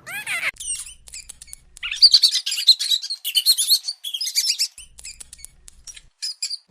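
Birds chirping: many short, high calls in quick runs, pausing briefly about two-thirds of the way through, with a brief lower call at the very start.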